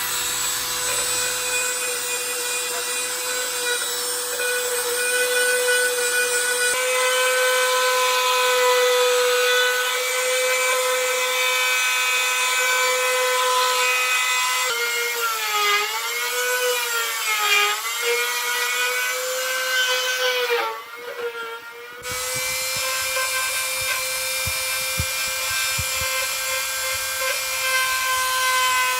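Dremel rotary tool running with a steady high whine as its bit grinds into wood. In the middle the pitch sags and wavers as the bit is pressed into the wood. About two-thirds through it briefly drops away, then spins back up.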